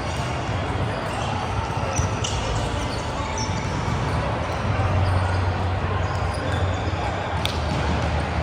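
Gym ambience: ball bounces and a few short high squeaks over a steady low hum, with voices in the background.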